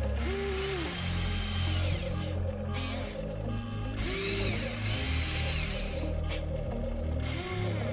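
Electric motors and gearboxes of a Huina 593 1/14-scale RC excavator whining in short bursts, the pitch rising and falling as each movement starts and stops, over background music with a bass line.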